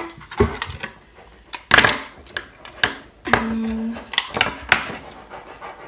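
Sticky tape and paper being handled and pressed down on a tabletop: a string of short crinkles and taps, the loudest about two seconds in. A brief steady hum-like tone sounds just past the middle.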